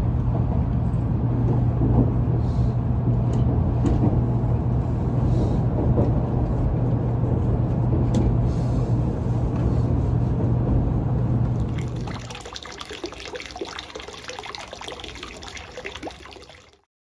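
Steady running noise inside a Nozomi Shinkansen car, a loud rumble with a constant low hum. About twelve seconds in it cuts to a much quieter scene with light clicks and clinks.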